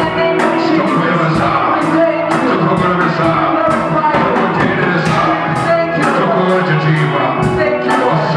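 Worship music with a steady beat of about two strikes a second, sustained chords and singing.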